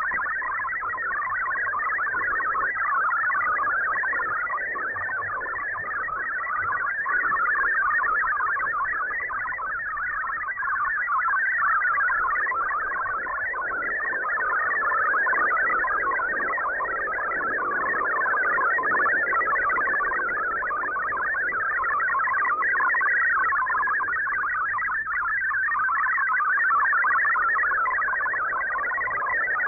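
Shortwave broadcast carrying an MFSK64 digital text transmission, heard as a fast warbling stream of many short tones hopping between about 1 and 2 kHz. The level swells and sags slowly with the radio signal's fading.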